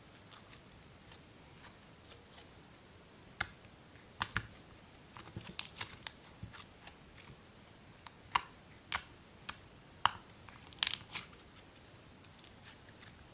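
Glitter-glue slime being squeezed and stretched by hand, giving irregular sharp clicks and pops, most of them in the middle of the stretch.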